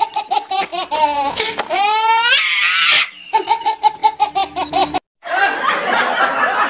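Loud, rapid, high-pitched laughter in quick 'ha-ha' pulses, with a sliding rise in pitch about two seconds in. The sound cuts out for a moment about five seconds in, then breathier laughter follows.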